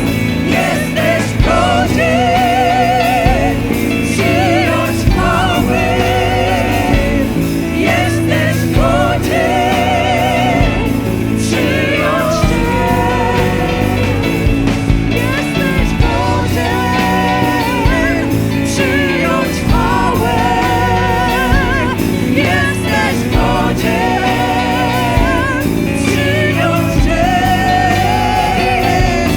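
A worship band plays spontaneous worship music, with a singer holding long notes with a wide vibrato over steady sustained bass and chords.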